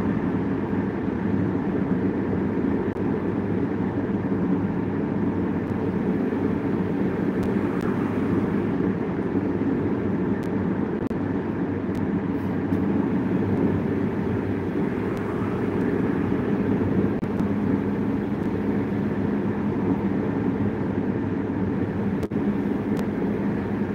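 Steady in-cabin road noise of a car cruising on a highway: a low, even rumble of tyres and engine drone.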